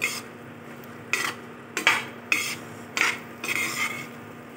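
Spatula scraping and turning onion and green capsicum chunks around a non-stick kadai while they are sautéed: a scrape roughly every half second to a second, over a low sizzle.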